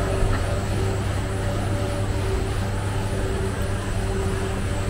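A steady low mechanical drone with a few faint steady tones above it, running evenly throughout.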